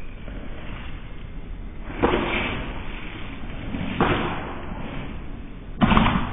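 Katana blade cutting through a soaked rolled tatami omote mat: three sudden swishing cuts about two seconds apart, the last the loudest.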